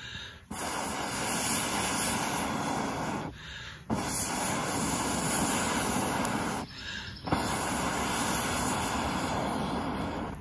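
Long, steady blows of breath pushed through a pocket bellows, a telescoping metal tube, into hot campfire coals to fan them back into flame: three blows of about three seconds each, with short pauses between them.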